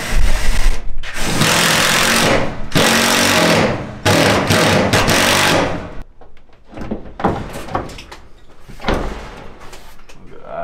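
Cordless power drill running in four long bursts over the first six seconds, driving fixings through a mounting plate into the wall. After that, lighter knocks and clicks of hands working on the wall-mounted box, with one louder knock near the end.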